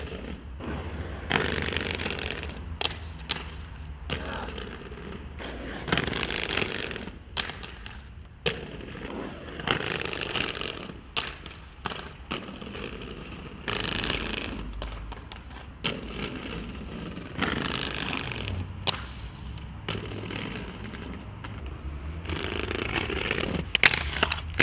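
Aggressive inline skates rolling on hard ground, with scraping stretches of grinds and several sharp clacks of take-offs and landings.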